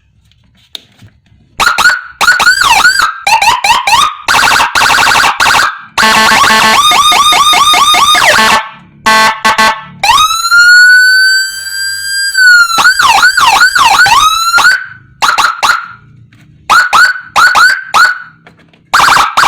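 Electronic siren module with Whelen Gamma2 tones playing through a 12-watt TOA horn speaker, stepping through its patterns: quick swooping chirps, fast yelp and hi-lo warbles, a wail that rises, holds and falls about ten seconds in, then short separate blips.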